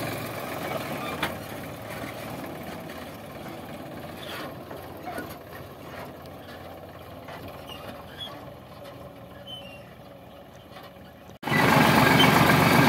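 Sonalika 745 tractor's diesel engine pulling a heavily loaded trolley, slowly fading as the rig moves away, with a few faint clicks and knocks. About eleven and a half seconds in, it cuts abruptly to the engine running loud and close from the driver's seat.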